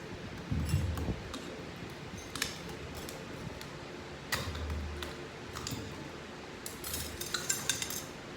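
Metal transmission parts being handled on a workbench: scattered clinks and light knocks of steel components, with a quick run of several clinks near the end.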